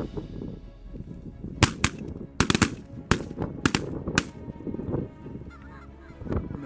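A rapid volley of about nine shotgun shots from several hunters over roughly two and a half seconds, with geese honking around them.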